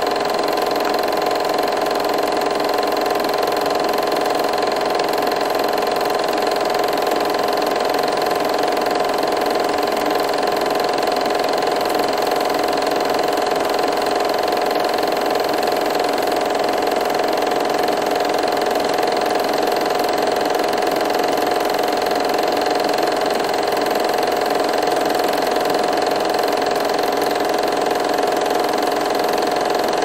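8mm film projector running: a steady, even mechanical whir.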